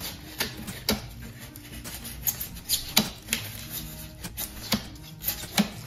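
Spackle knife prying chips out of foam board along shallow knife cuts: irregular sharp snaps and crackles as the pieces pop off, about eight standing out.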